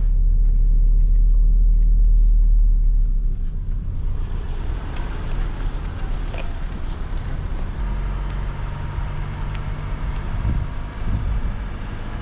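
A campervan's engine running and its tyres on the road as it drives along, heard from inside the cab, with a steady low rumble that is loudest for the first three seconds.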